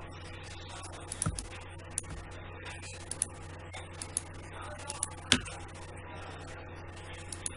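Computer mouse clicking irregularly, a dozen or so single clicks with one louder click about five seconds in, as lasso points are placed one at a time, over a steady low electrical hum.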